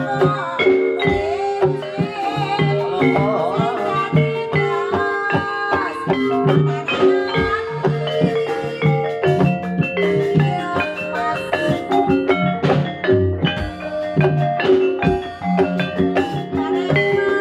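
Javanese jaranan ensemble music: gamelan-style tuned mallet percussion playing a repeating melody over steady drum strokes, amplified through a sound system.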